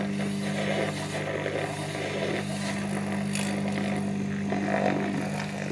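IKEA battery-powered handheld milk frother whisking milk: its small motor runs with a steady hum while the whisk churns the milk.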